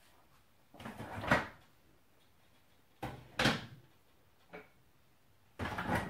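Refrigerator door opened and shut, with handling in between: three short noisy sounds about two seconds apart, the middle one starting with a sharp click.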